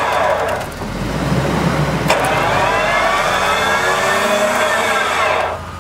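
Electric winch on a UAZ Patriot whining under load as it drags the vehicle over a boulder. The whine stops briefly about half a second in, then starts again with a sharp click about two seconds in, its pitch sliding slowly, and cuts off near the end.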